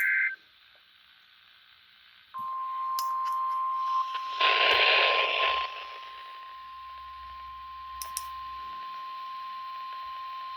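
NOAA Weather Radio's 1050 Hz warning alarm tone, received on a weather radio: a single steady tone that starts about two seconds in and sounds for the weekly test of the station's warning device. It opens on the last instant of the two-tone SAME data burst, and a loud burst of noise cuts across the tone about four to five seconds in.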